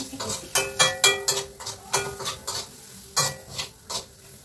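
Spoon stirring in a frying pan, with irregular knocks and scrapes that ring briefly against the pan, over a light sizzle of the frying sausage and sauce.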